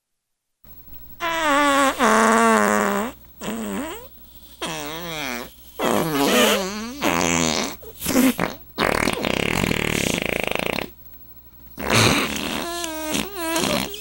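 A string of fart sounds, one after another, each wavering and bending in pitch, with a long hissing one about nine seconds in.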